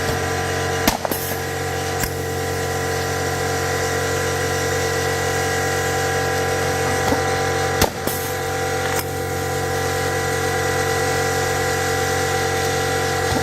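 Rivetec RL 40 pneumatic-hydraulic riveter working, with two pairs of sharp snaps about a second apart, over a steady mechanical hum.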